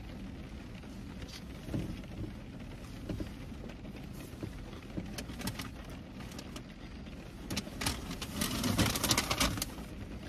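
Paper fast-food bag rustling and crinkling for a couple of seconds near the end, the loudest sound here. Before it, soft eating and handling sounds, small clicks and chewing, over the low steady hum inside a car.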